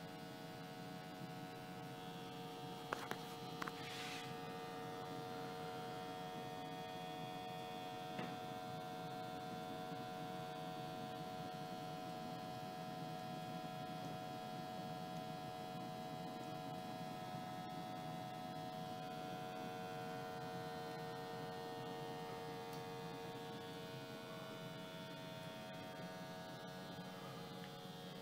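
Steady hum of the sampling pump in a Testo 330-2 flue gas analyser, drawing exhaust gas from a wood-burning stove, with a few short clicks about three to four seconds in and again around eight seconds.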